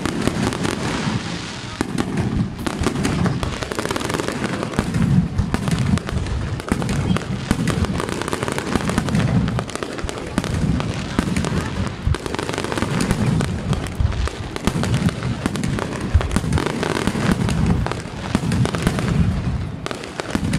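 Aerial fireworks display: shells bursting overhead in a dense, continuous run of bangs and crackling.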